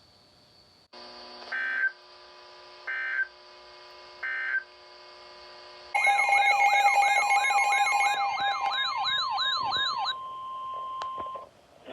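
Emergency Alert System broadcast signalling tones: three short electronic data beeps over steady electronic tones, then about halfway through a loud warbling siren-like alert tone that sweeps up about twice a second, ending in a steady beep.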